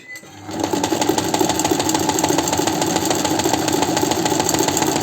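Chaika 143A sewing machine starting up about half a second in and running at a steady speed, stitching a zigzag seam in a test sew; its needle mechanism makes a rapid, even clatter.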